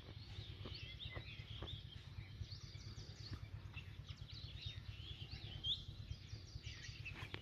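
Faint outdoor ambience of small birds chirping, many short quick calls scattered throughout, over a steady low background rumble.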